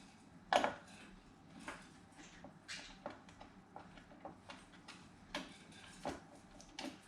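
Scattered light clicks and knocks of hardware being handled as a graphics card is fitted into a PC case, the loudest knock about half a second in.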